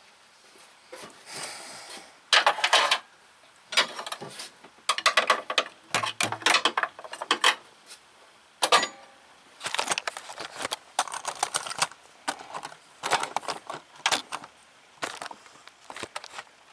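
Metal hand tools clicking and clattering in irregular bursts as they are handled.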